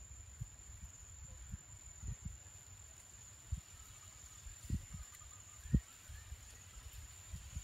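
Wind buffeting the microphone in uneven low rumbles and thumps, the strongest about two thirds of the way through, over a thin steady high-pitched insect drone.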